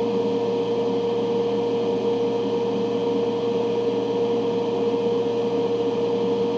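Electric fume-extraction fan running with a steady hum and a constant whine.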